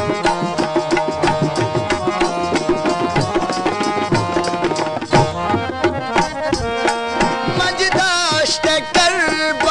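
Harmonium playing a melody over fast hand-drum rhythms on tabla and dholak. Near the end a man's voice comes in, singing a long note with wavering, ornamented pitch.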